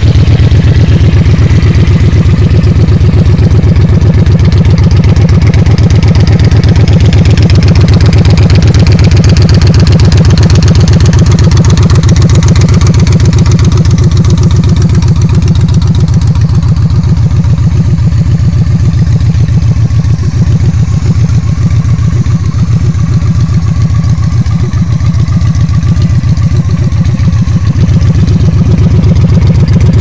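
2012 Victory High Ball's V-twin running steadily and loudly through aftermarket Zoomies exhaust pipes, just after start-up.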